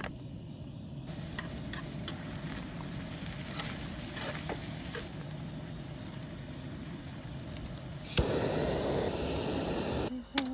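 Camp stove burner running under a pan of simmering food, with a few light clinks. About eight seconds in, a handheld blowtorch clicks alight and hisses loudly for about two seconds as it melts cheese on top of the dish.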